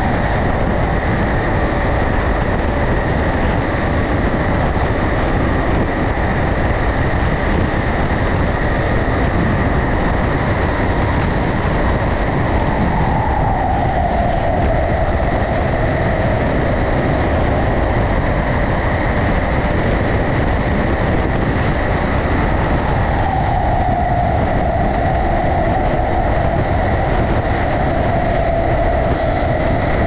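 London Underground Jubilee Line 1996 Stock tube train running at speed through a tunnel: a loud, steady rumble of wheels and motors with a constant high whine. A tone slides downward about halfway through and again near the end.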